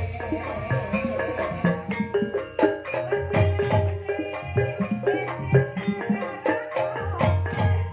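Banyumasan gamelan music in the ebeg style: struck metallophones ring out pitched notes over low drum beats in a steady, quick rhythm.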